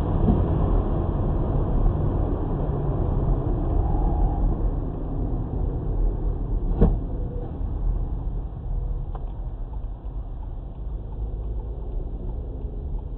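Steady road and engine rumble of a moving car heard through a dash camera, with one sharp knock about seven seconds in and a fainter click about two seconds later.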